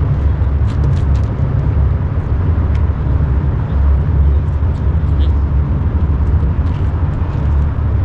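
Wind buffeting the microphone: a loud, uneven low rumble, with a few faint ticks over it.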